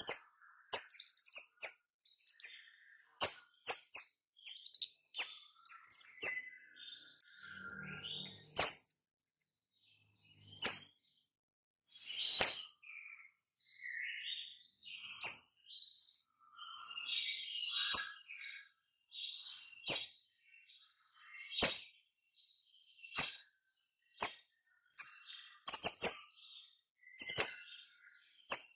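A caged kemade songbird singing in rapid 'nembak' style: loud, sharp, high chirps repeated about every one to two seconds, with softer chattering notes in between.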